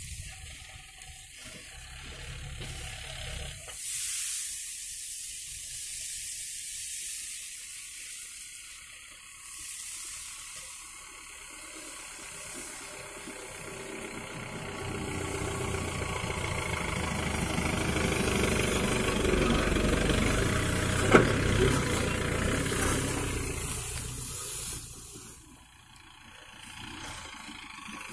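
A heavily loaded Mahindra Bolero pickup's diesel engine running as the truck pulls closer: a steady engine hum grows louder through the middle and drops away near the end. A single sharp click comes about two-thirds of the way through, over a steady hiss.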